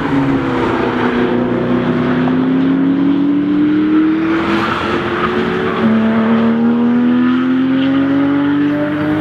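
Sports car engine accelerating hard away up the track, its pitch climbing steadily, with one upshift about six seconds in before it climbs again.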